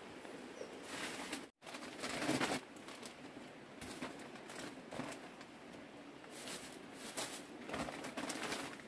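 Plastic bags rustling and crinkling as they are handled and rummaged through, in irregular bursts, with a brief drop to silence about one and a half seconds in.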